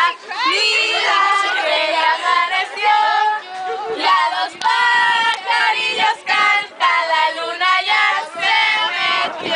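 Several teenage girls' high voices overlapping: excited talk and drawn-out, almost sung exclamations.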